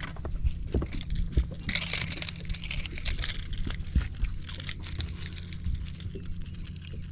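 Irregular clicks, knocks and rattles of a freshly caught fish flopping while held for unhooking, with a metallic jangle from the crankbait and its hooks, loudest from about two to three and a half seconds in. A steady low hum runs underneath.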